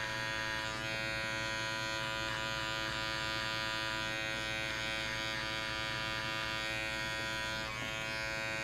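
Corded electric hair clipper buzzing steadily with no guard on, its blade cutting short hair close to the scalp around the ear.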